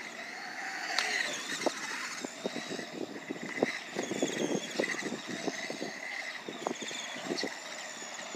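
Small electric RC monster truck (Redcat Volcano 18) driving around a concrete skate bowl: a thin motor and gear whine that wavers up and down with the throttle, with scattered clicks and knocks as it runs over the concrete.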